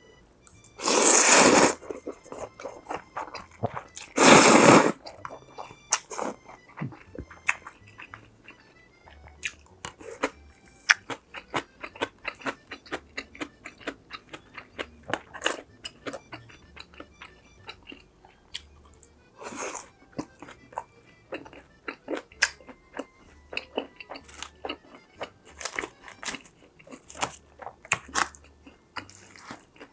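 Close-miked eating of crunchy food: two loud crunching bites in the first few seconds, then steady chewing with many small crunches and wet clicks of the mouth.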